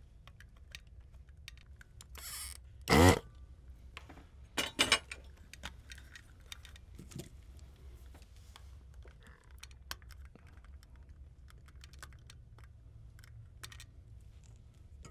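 Small clicks and taps of hand tools and a circuit board being handled while a resistor is desoldered, with one loud knock about three seconds in and a few sharper clicks around five seconds.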